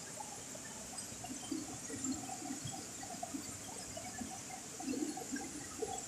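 Running water splashing and gurgling: a small waterfall spilling over boulders into a rocky pool, with irregular louder splashes.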